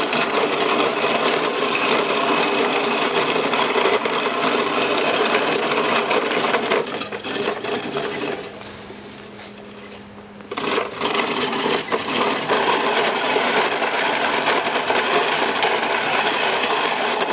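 Manual push reel mower cutting grass, its spinning reel blades whirring and clattering against the fixed cutting bar. About halfway through it goes quieter for two seconds, then starts up again.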